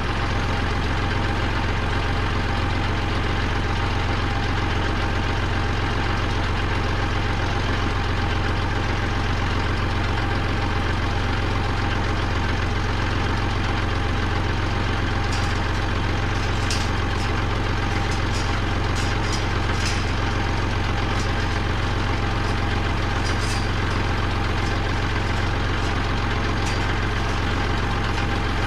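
Kubota compact tractor's diesel engine idling steadily, heard close up. A few faint, sharp clicks come through in the middle.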